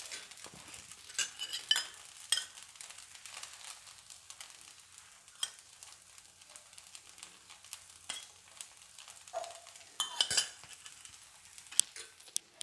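Poha dosa batter sizzling on a hot tawa, with scattered crackles and a few sharp clinks of a steel spoon as oil is drizzled around the edge of the dosa.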